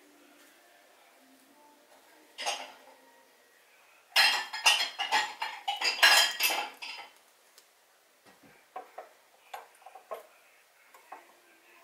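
Small metal carburetor parts and hand tools clinking and clattering on a hard countertop during carburetor reassembly: a single clink about two and a half seconds in, a dense run of clinks and knocks from about four to seven seconds in, then scattered light clicks as the petcock cover is fitted.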